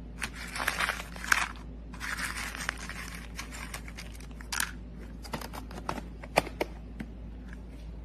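Bursts of crinkling, tearing noise with scattered sharp clicks, thinning out to a few clicks in the second half.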